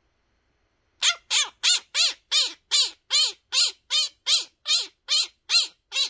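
A Quaker parrot (monk parakeet) giving a rapid, regular run of short harsh squawks, about two and a half a second, starting about a second in.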